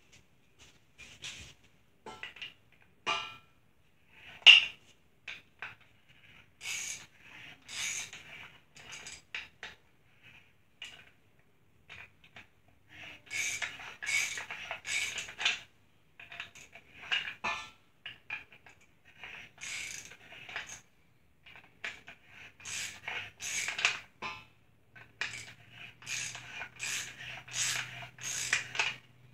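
Ratchet wrench clicking in quick runs as a socket loosens the fastener holding the brass lamp base together, with metal clinks as the parts are handled. A single sharp metal knock about four seconds in is the loudest sound.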